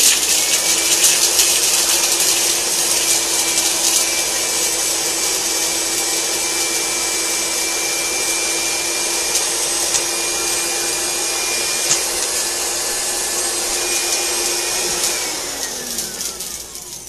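NutriBullet personal blender motor running steadily at full speed, then winding down with a falling pitch about fifteen seconds in as it is released.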